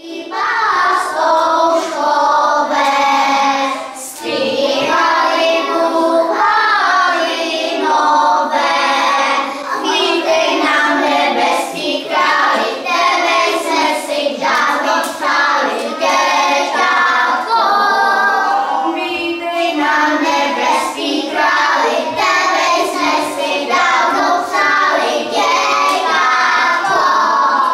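Children singing a song together, with a short break about four seconds in.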